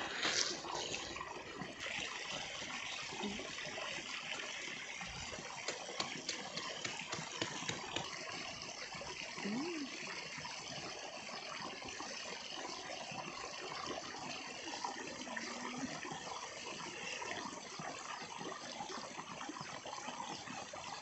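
Steady hiss with light rustling and crackling of dry grass and twigs being pulled and handled, and a few faint clicks.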